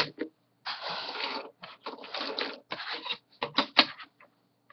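Plastic Lego bricks clattering as they are rummaged through and handled, in three short spells, then a few sharp clicks near the end.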